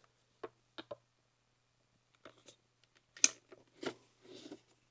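Hard plastic clicks and knocks from a borescope's monitor being fitted onto its handle mount and handled, several single clicks with the sharpest a little past three seconds in, then a brief rustle near the end.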